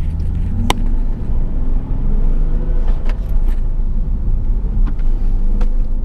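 Nissan 370Z's 3.7-litre V6 running with road rumble, heard from inside the cabin while driving. There is one sharp click just under a second in.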